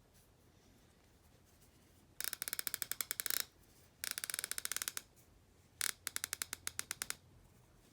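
Pittsburgh 1/2-inch drive flex-head ratchet being worked, its freshly greased pawl clicking rapidly in three bursts of about a second each, nice and quiet.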